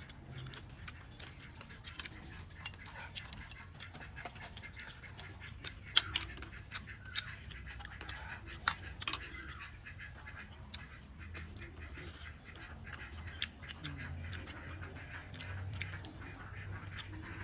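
Irregular clicks and taps of metal forks and spoons against metal trays and mussel shells while eating, a few of them sharper and louder than the rest.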